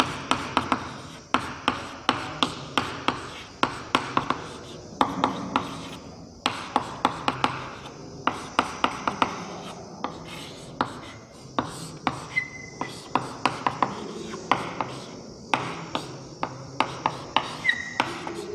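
Chalk writing on a chalkboard: runs of quick taps and scratching strokes with short pauses between them, and a brief high chalk squeak twice.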